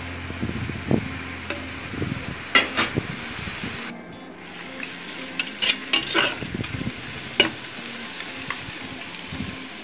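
Sliced onions, green chillies and curry leaves sizzling in hot oil in a pressure cooker, stirred with a perforated spatula that scrapes and clicks against the pot's metal side. The sizzle is steady for the first few seconds, then drops to a quieter hiss about four seconds in.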